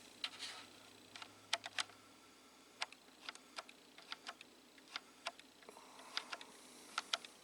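Faint, irregular light clicks and taps, about two a second, over a low hum that stops about two seconds in.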